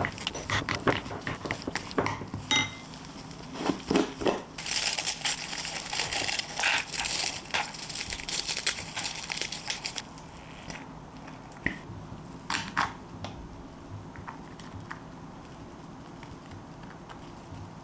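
A wooden spatula scraping and tapping in a glass bowl of yogurt cream, then about five seconds of dense crackling as pieces are crumbled by hand into a plastic cup, followed by a few light clicks as cream is spooned in.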